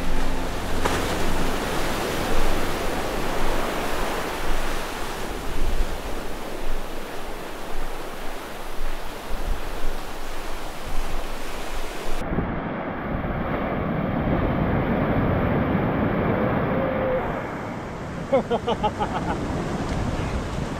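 Ocean surf breaking on a beach, with wind rushing over the microphone. About twelve seconds in the sound turns duller, with less hiss, and a few short pitched calls or voices come through near the end.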